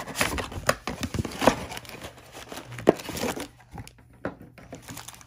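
Cardboard and wrapper packaging of a Panini Prizm mega box of trading cards being torn open and crinkled by hand. A string of sharp tearing crackles comes in the first three seconds, then quieter rustling handling.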